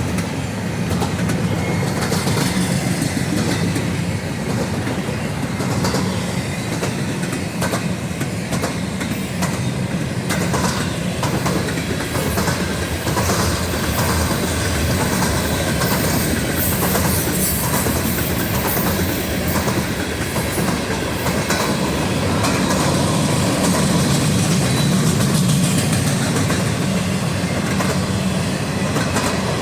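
Freight train cars rolling past, a steady rumble with the wheels clicking over the rail joints.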